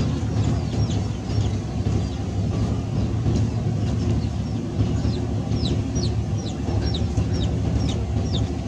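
Birds chirping over and over, many short high calls that each drop quickly in pitch, more of them in the second half, over a steady low rumble.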